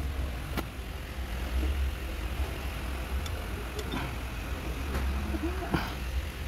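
A steady low rumble with a few short, light clicks and knocks from hands handling the timing belt and sprockets of an engine.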